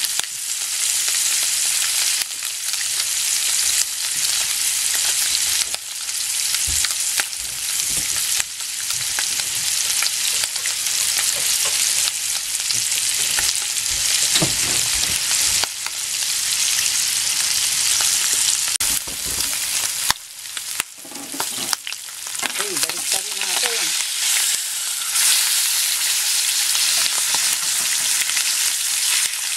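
Salmon steaks frying in olive oil and melting butter: a steady sizzle, with a few low knocks in the first half and a brief dip in the sizzle about two-thirds of the way in.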